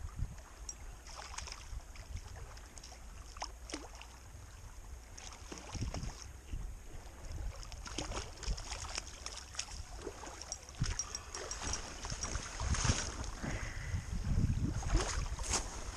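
Wind on the microphone and small waves lapping at the shore, with irregular splashes and clicks as a hooked brown trout is played into the shallows and slid up onto the gravel near the end.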